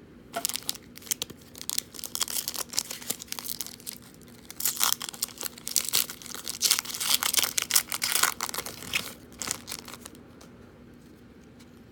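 Foil wrapper of a trading card pack being torn open and crinkled by hand: a run of crackling rips that is loudest in the middle and stops about ten seconds in.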